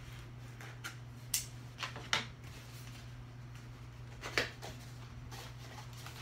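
Scissors snipping through the tape on a small cardboard box, a few sharp snips in the first two seconds, then the cardboard flaps pulled open with a louder crackle about four seconds in.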